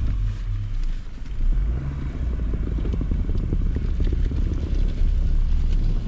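A car driving on a snowy road: a steady low rumble of tyres and engine, with a rough, irregular crackle in it.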